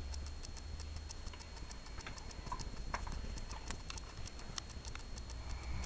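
A sleeping person snoring deeply, a low sound under a fast, even ticking that runs throughout, with a few sharper clicks near the middle.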